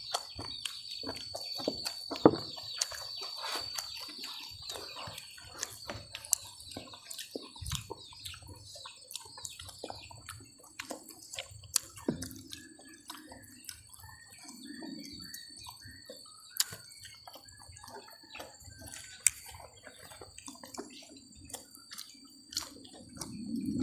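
Close-up eating sounds: scattered wet clicks and smacks of chewing with the mouth and hands, over a steady high thin tone.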